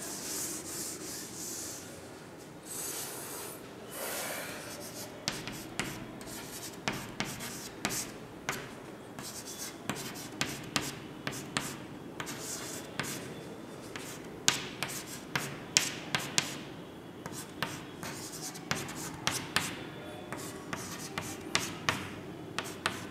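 A board duster rubbing across a chalkboard for the first few seconds, then chalk writing on the board: a long run of sharp taps and short scratches as letters are written.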